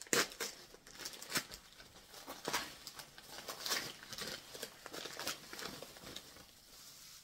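Wrapping paper crinkling and tearing in irregular bursts as a small gift parcel is unwrapped by hand, the rustling dying down toward the end.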